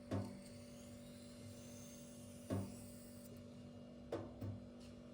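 Knife blade being worked on a silicon carbide whetstone: four short knocks, the last two close together, with a faint high scraping between the first two, over a steady low hum.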